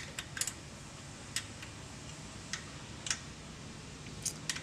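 A 1/2-inch wrench clicking and clinking on the steel hold-down bolts of a gutter machine's mounting block as they are tightened: sharp, irregular ticks, some in quick pairs, with a faint steady low hum underneath.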